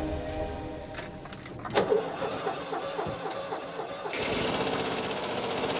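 The air-cooled flat-four engine of a 1978 Volkswagen Westfalia van being started with the key. The starter cranks for about two seconds, and the engine catches about four seconds in and runs.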